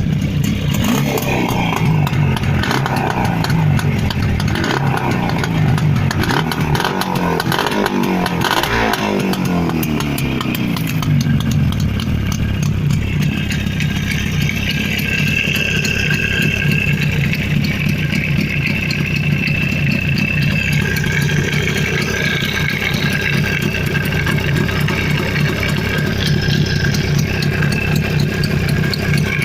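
A freshly rebuilt Jawa 350 type 638 two-stroke parallel-twin motorcycle engine, with CDI ignition, is revved up and down several times over roughly the first ten seconds. It then settles into a steady idle.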